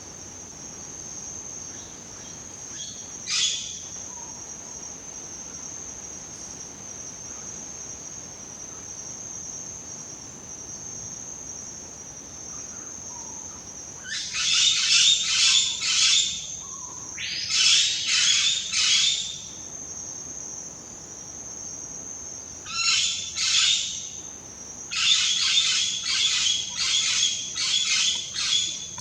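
Reichenow's parrots (blue-bellied parrots) calling: a single call early, then several loud bouts of harsh calls repeated in quick succession in the second half. A steady high-pitched insect drone runs underneath.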